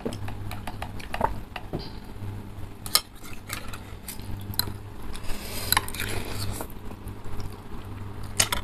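Metal forks and spoons clinking and scraping against bowls as noodles are stirred and lifted, with scattered sharp clinks, the loudest about three seconds in, near six seconds and near the end.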